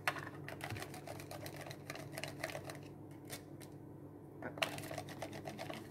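Mushrooms being sliced on a handheld plastic mandoline slicer with a hand guard, a quick run of clicking, scraping strokes of the guard over the blade, with a sharper click at the start and another a little after halfway.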